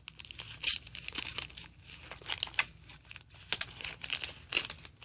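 Foil wrapper of a Magic: The Gathering booster pack crinkling and tearing as it is handled and ripped open, a dense, irregular crackle.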